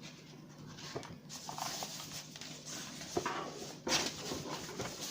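Rustling of packaging and small knocks as a boxed keyboard is unpacked and handled, with a couple of sharper knocks in the second half.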